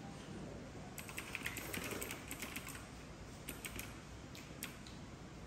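Typing on a computer keyboard: a quick run of key clicks about a second in, then a few scattered keystrokes.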